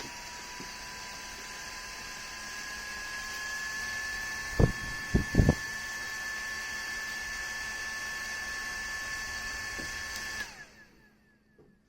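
Small clip-on handheld fan running with a steady high whine and airy hiss, the whine rising a little in pitch a few seconds in. Three sharp knocks near the middle are the loudest sounds. About ten and a half seconds in the fan switches off and the whine falls away as the blades spin down.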